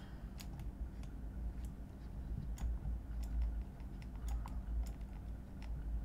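Scattered, irregular clicks of a computer mouse and keyboard over a low steady hum.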